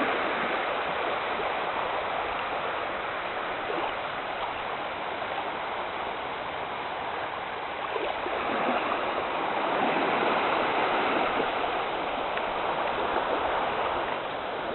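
Small Baltic Sea waves washing and splashing in the shallows, a steady rush of water that swells a little about halfway through.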